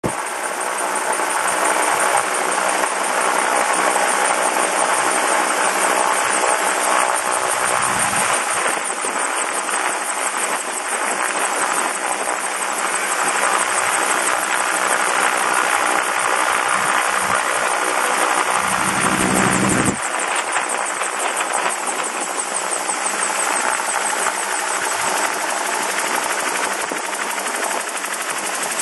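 Gyrocopter descending in autorotation with its engine throttled back: a steady rush of airflow and rotor noise with an engine drone underneath. Brief low rumbles come about eight and nineteen seconds in.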